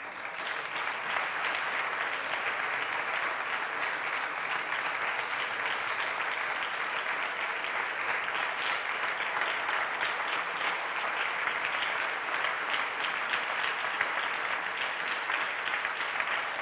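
Audience applauding: many hands clapping at once. It swells to full strength within the first second and then holds steady.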